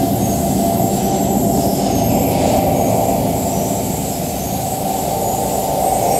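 Live electronic noise music from laptops and electronics: a loud, dense, steady drone of noise, heaviest in the low and middle range with a thinner hiss on top, easing slightly past the middle and swelling again near the end.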